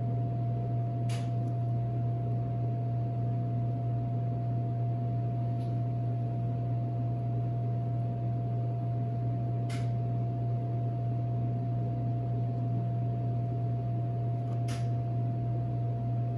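Steady mechanical hum of commercial kitchen equipment: a low drone with a faint steady whine above it. A few faint ticks sound through it.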